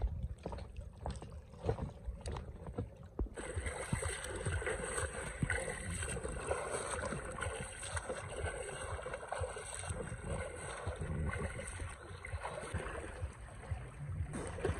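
Lake water splashing and lapping under a low rumble of wind on the microphone. About three seconds in the sound changes abruptly to a swimmer's strokes splashing in the water close by, many small irregular splashes.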